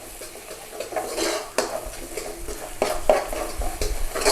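A metal utensil stirring and scraping through thick tomato paste and spices in a curry pan, with irregular clanks against the pan.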